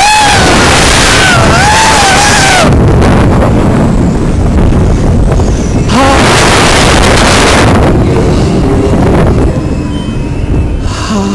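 Rushing air buffeting and overloading a phone's microphone on a fast amusement thrill ride. Riders scream with a wavering, rising and falling pitch near the start and again briefly about six seconds in. The rush eases off near the end.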